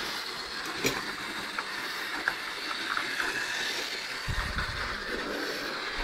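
Model train running on the layout's track: a steady whirring hiss broken by a few sharp clicks, with a short low rumble about four seconds in.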